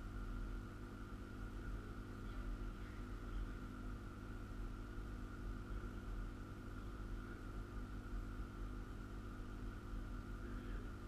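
A steady low hum with a thin steady whine above it: constant room tone with no distinct events.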